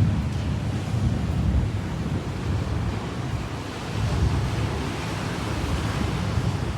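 Atlantic Ocean waves washing in as a steady surf, with gusts of wind buffeting the microphone that swell again about four seconds in.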